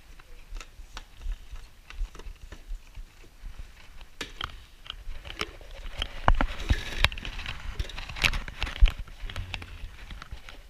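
Irregular clicks, knocks and crinkling of things being handled and moved about, busiest and loudest about six to nine seconds in.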